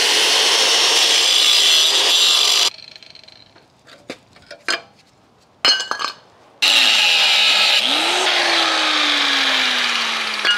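Corded angle grinder with a cut-off wheel cutting through the steel spring perches on a rusty rear axle housing. The first cut stops abruptly a little under three seconds in, with a few knocks in the pause. The second cut starts about six and a half seconds in, and its motor pitch sinks slowly as the cut goes on.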